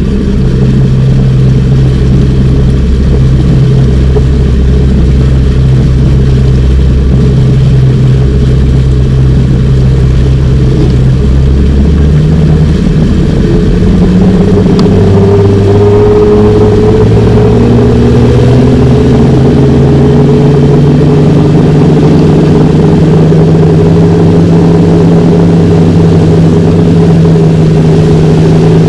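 Boat's outboard engine running under way, loud. It holds a steady low pitch, then about halfway through its pitch climbs as it speeds up, and it stays running at the higher speed.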